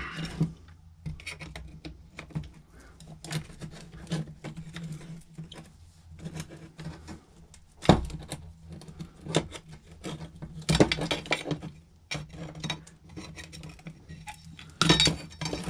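Hand tools and small metal fan-motor parts clicking and clinking on a wooden workbench as the motor is pried apart with a screwdriver and pliers, with louder clanks about eight, eleven and fifteen seconds in. A steady low hum runs underneath.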